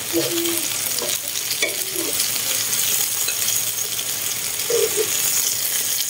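Lá lốt (betel-leaf) wrapped mushroom rolls sizzling steadily in a hot pan as they are picked out with tongs.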